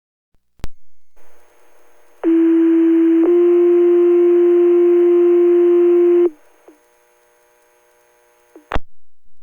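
Two-tone sequential fire-department pager alert over a scanner radio. After a key-up click and radio hiss, one low steady tone is held for about a second, then it steps up to a slightly higher tone held about three seconds. The alert tones out the fire department ahead of the dispatch, and a squelch crackle near the end closes the transmission.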